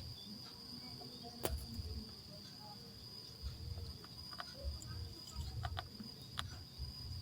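A steady, unbroken high-pitched insect trill, over a low uneven rumble with a few sharp clicks.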